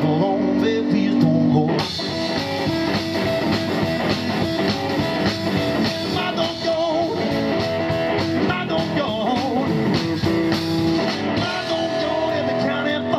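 Live rockabilly band playing: electric guitar, electric bass and drum kit.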